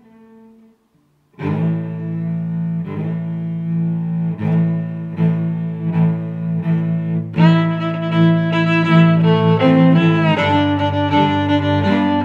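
Background music led by low bowed strings, starting about a second and a half in after a brief gap and growing fuller around the middle.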